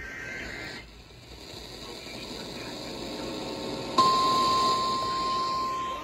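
A steady hiss, then about four seconds in a weather alert radio sounds its loud, steady single alarm tone of about 1 kHz. This is the NOAA Weather Radio warning alarm tone, which signals that a warning is being broadcast.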